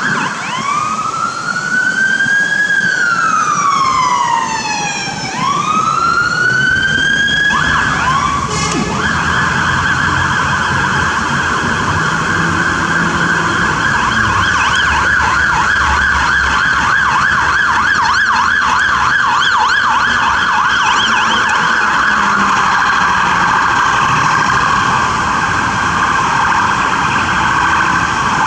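Fire truck's electronic siren on wail, sweeping slowly up and down and rising again, then switching to a fast up-and-down yelp about eight to nine seconds in that carries on to the end. Steady low tones sound underneath.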